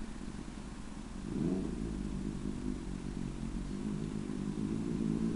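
Kawasaki ZX-6R sport bike's inline-four engine running, out of sight; its sound grows a little over a second in and then wavers in pitch at a low rev.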